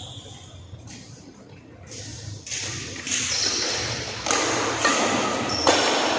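Badminton being played in a large sports hall: several sharp hits with an echo, the shuttlecock being struck by rackets, getting louder from about halfway. Thin high squeaks are heard alongside the later hits.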